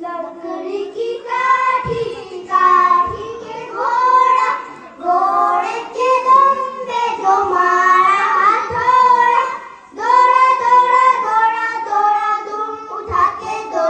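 Children singing a song together, their voices holding and gliding between notes.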